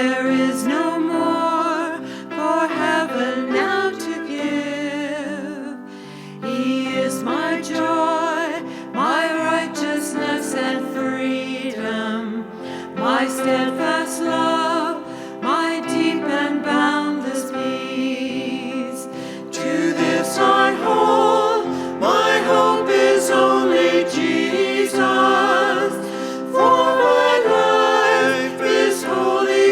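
Church music team singing a song with several voices and instrumental accompaniment.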